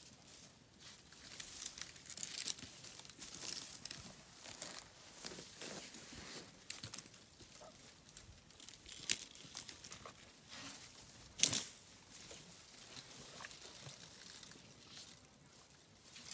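Irregular rustling and crackling, like dry material being torn and crumpled, with one sharp snap about eleven and a half seconds in.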